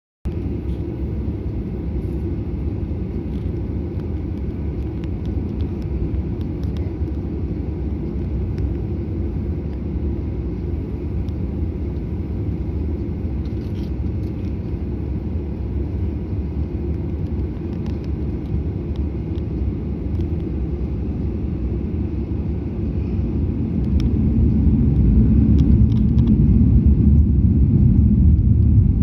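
Steady low rumble from an airliner on the ground before takeoff. The rumble swells and grows louder about 24 seconds in.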